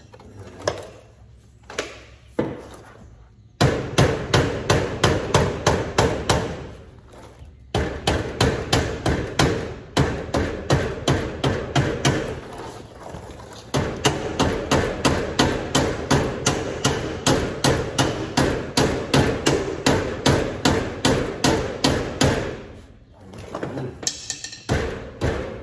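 Rapid hammer blows, about four a second, in three long runs with short pauses between, driving a tight-fitting part into place.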